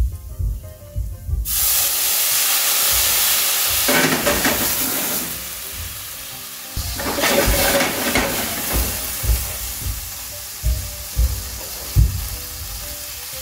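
White wine poured into a hot stainless steel sauté pan of garlic and oil: a sudden loud sizzle and hiss about a second and a half in as the pan deglazes, swelling twice more, then settling to a quieter steady sizzle. A few short soft knocks near the end as pats of butter drop into the pan.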